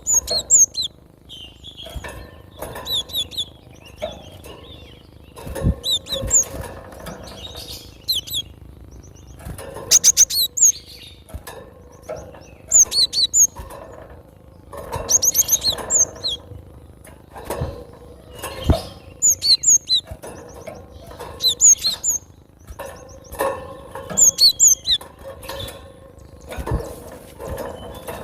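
Cinereous tit (gelatik batu) singing: bursts of quick, high, repeated notes every second or two, with a few low knocks in the background.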